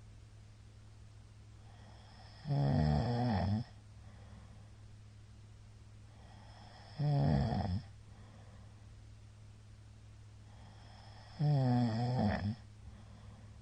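A man snoring very loudly in his sleep after heavy drinking: three loud snores, each about a second long, evenly spaced about four and a half seconds apart, with quiet breathing gaps between.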